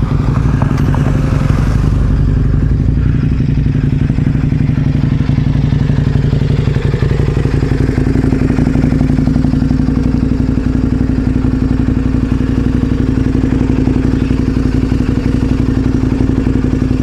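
Adventure motorcycle's twin-cylinder engine running steadily under way, its pitch rising slightly about seven seconds in.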